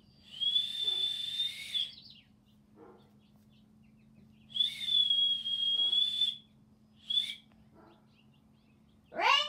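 Small metal whistle blown in two long steady high-pitched blasts, then a short third blast, as a call for a dog. Near the end a brief loud cry rises and falls in pitch.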